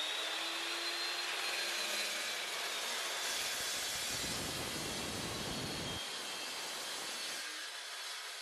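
Electric metal-cutting chop saw running at full speed with a steady high whine, its blade cutting down through square steel tube.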